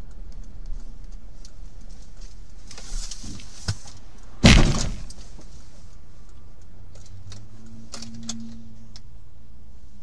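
Steady low road and engine rumble of a moving car, broken about four and a half seconds in by one loud, sharp crash-like impact, with a few lighter clicks and rattles around it.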